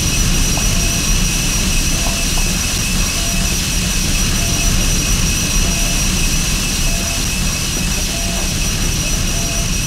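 Harsh electronic noise music from effects pedals and a mixer: a loud, dense wall of low noise with two steady high whining tones over it, and short faint beeps a little less than once a second.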